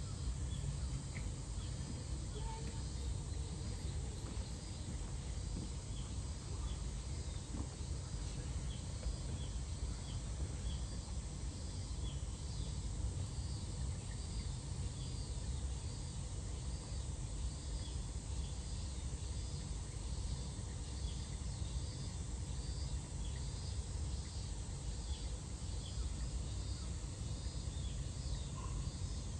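Insects calling in an evenly repeating pulse, a little over one call a second, over a steady low rumble of outdoor noise.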